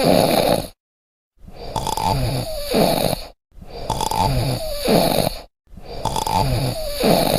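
Loud human snoring, one snore about every two seconds. Each snore is a low buzz followed by a noisy rush of breath. The snores repeat almost identically, with abrupt silent gaps between them, like a looped recording.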